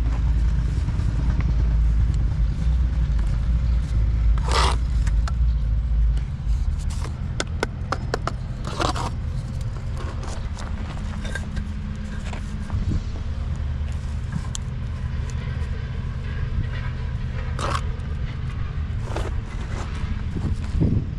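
A steady low rumble, heavier for about the first six seconds, with occasional short scraping and knocking sounds over it.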